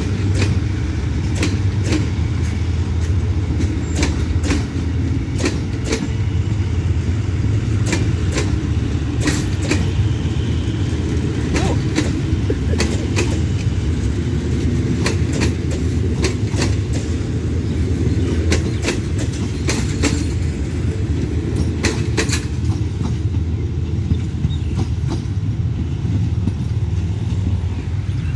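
Passenger train coaches rolling past: a steady low rumble with many sharp, irregular clacks of the wheels on the track, the clacks dying away about five seconds before the end as the last coach passes.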